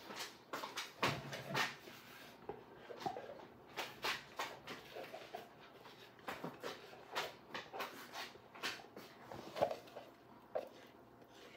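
Irregular clicks, taps and knocks of soap-making utensils and containers being handled, with a couple of short squeaks near the end.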